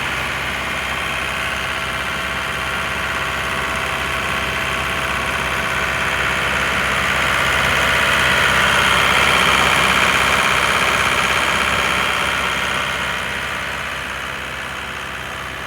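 Sullair air compressor running steadily, a continuous mechanical drone with a hiss that swells louder about halfway through and eases off again near the end.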